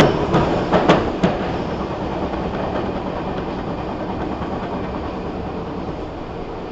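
Nagoya Municipal Subway N3000-series train running, heard from inside the passenger car: a steady rolling rumble of wheels on rail with a few sharp clacks about a second in, then slowly growing quieter.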